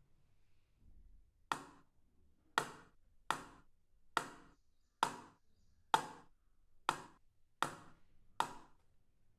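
Knife chopping on a cutting board: nine sharp, separate strokes at about one a second, starting a second and a half in.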